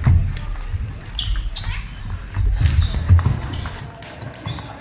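Table tennis rally: the ball clicking off the bats and the table, with players' shoes thudding on the hall floor.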